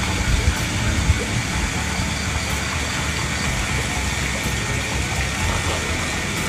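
Background music with a heavy, steady low end.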